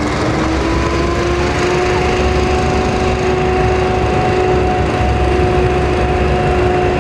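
Engines running steadily at idle with a low rumble, and a steady whine over them that rises a little in pitch at the start and then holds.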